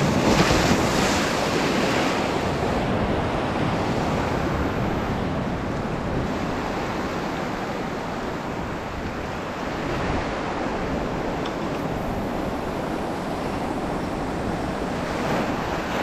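Sea surf washing over the rocks, swelling up loudest just after the start and again briefly about ten seconds in, with wind buffeting the microphone.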